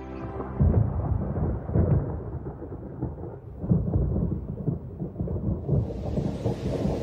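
Thunder rumbling in several rolling surges, with the steady hiss of rain coming in near the end.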